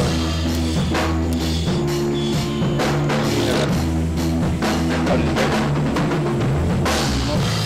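Background rock music with a steady drum beat, bass and guitar.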